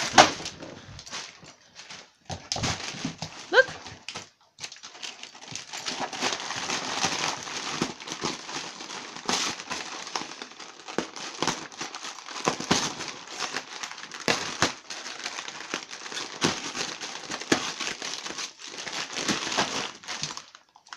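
A dog tearing open gift wrapping and packaging with her teeth: steady crinkling and rustling with many sharp crackles and rips.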